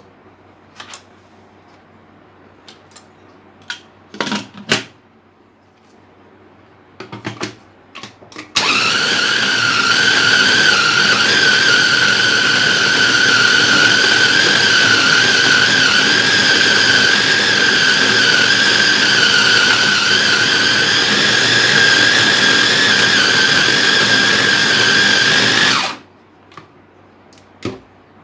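Electric food chopper's motor head running steadily with a loud high whine for about seventeen seconds while chopping raw meat in its plastic bowl, then cutting off suddenly. Before it starts there are a few clicks and knocks as the bowl, lid and motor head are fitted, and more clicks as it is opened afterwards.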